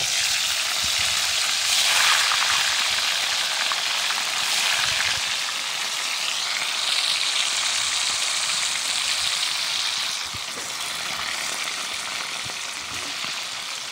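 Food sizzling as it fries in hot oil in a pan: a steady sizzle that eases a little about ten seconds in.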